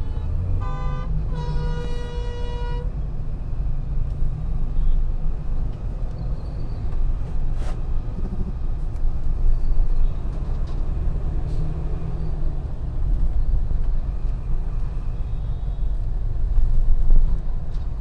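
A vehicle horn honks twice near the start, a short toot and then a longer one about a second and a half long. After that there is steady low rumble of engine and road noise from a car driving in traffic.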